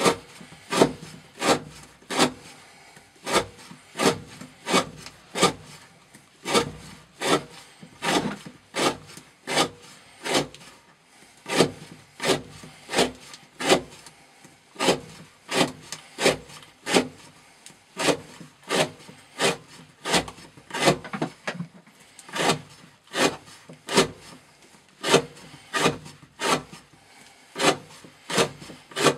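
Andrey Biryukov knife with a CPM 15V steel blade shaving curls off the corner of a wooden board, one short scraping cut after another at about two strokes a second.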